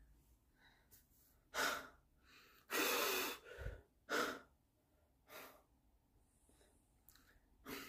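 A man breathing hard, out of breath after a set of dumbbell arm exercises: about five heavy breaths, the longest and loudest about three seconds in, with a brief low thump just after it.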